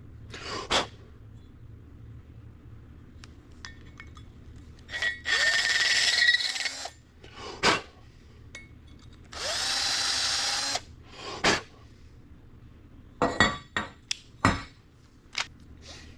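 Power drill run twice for a second or two each time, spinning up at the start of each run. Short knocks and clicks sound between and after the runs.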